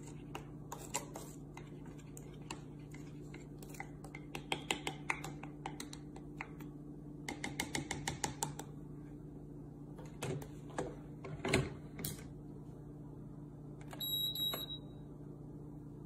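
A spoon clinking and tapping against the SAKI Turkish coffee maker's pot while stirring coffee, with a quick run of taps about halfway through, then a few heavier knocks as the pot is handled and set into the base. Near the end the machine gives a short double electronic beep.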